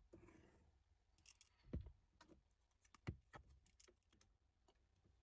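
Faint taps and clicks of a ruler and marker being handled on paper while lines are drawn, with two louder knocks nearly two and three seconds in as the ruler is set down and moved.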